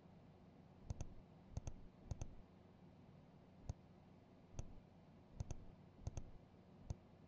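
Faint computer mouse clicks, about eight spread unevenly, several heard as a quick double tick.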